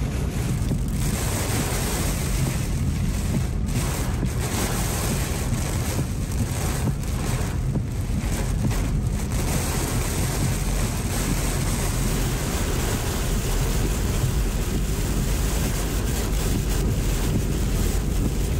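Hurricane Idalia's wind and driving rain buffeting a moving car, heard from inside the cabin as a steady, even rushing noise with the deep rumble of the car on the wet highway. These are rough conditions as the hurricane's inner core comes in.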